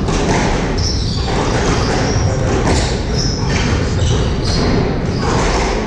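Squash rally: the ball struck by rackets and smacking off the court walls at irregular intervals, with several brief high squeaks of shoes on the hardwood floor.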